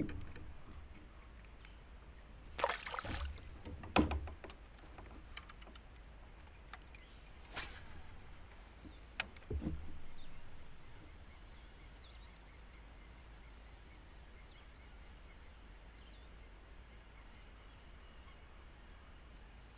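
A few scattered knocks and clicks on a plastic fishing kayak, loudest about three and four seconds in, with a dull thump near the middle. After that only quiet lake ambience with a steady low rumble.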